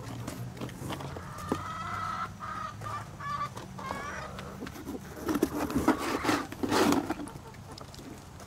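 Backyard chickens clucking: a run of short pitched calls repeated over a couple of seconds. About five seconds in, a louder rustling noise follows for a couple of seconds.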